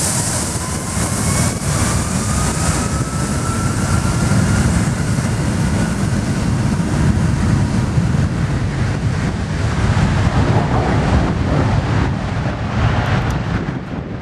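Jet engines of a Boeing 757 airliner at takeoff thrust: a steady deep roar with a faint whine rising in pitch over the first few seconds as the engines spool up, and wind gusting on the microphone as the plane begins its takeoff roll.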